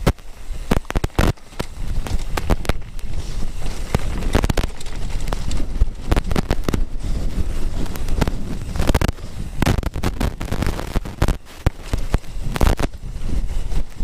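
Mountain bike rattling and knocking over a rough moorland track, with irregular clatters from the frame and chain and a constant low rumble of wind buffeting the action camera's microphone.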